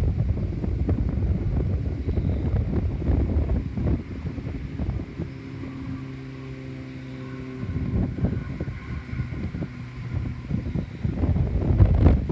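Wind buffeting the microphone in gusts, with a steady droning hum for a few seconds in the middle.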